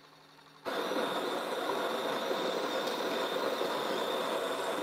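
SPINN coffee machine's built-in grinder starting abruptly under a second in and running steadily, grinding beans at the start of a brew cycle.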